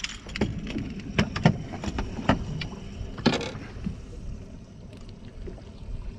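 Knocks and thumps of a landing net holding a speckled trout being brought aboard and handled on a boat deck, about half a dozen in the first three seconds or so. After that a low steady wind and water noise.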